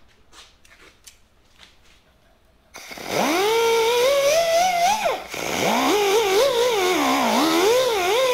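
Handheld drum sander starting about three seconds in, its whine rising in pitch, then sanding inside the bore of a cast bronze capstan with the pitch wavering under load. It stops briefly about halfway through and starts again. It is sanding down high spots in the bore so a plug will fit.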